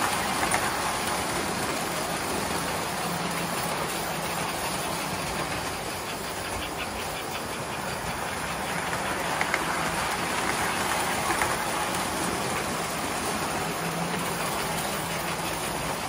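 Several O-gauge tinplate toy trains running on three-rail tubular track: a steady metallic rumble and clatter of wheels on the rails with the hum of their electric motors, louder as a train passes close by near the start and again near the end.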